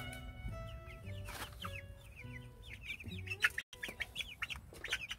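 Young chickens giving many short, high, falling peeps and soft clucks as they crowd around to be hand-fed, with a couple of brief rustles.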